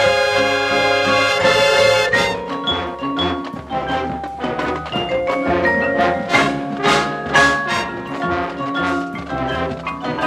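Marching band playing live: brass and drums hold a full chord for about two seconds, then break into short accented rhythmic hits over marimba and xylophone notes from the front ensemble, with several sharp accents about six to seven and a half seconds in.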